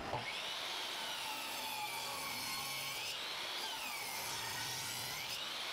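Power saw cutting through 2x12 lumber, with a high whine that dips and rises several times as the blade loads up in the wood.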